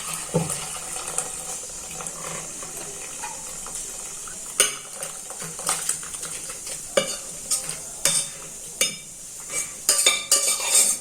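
Metal ladle clinking and scraping against a metal cooking pot as the chicken curry is ladled out, with irregular knocks that come more often near the end.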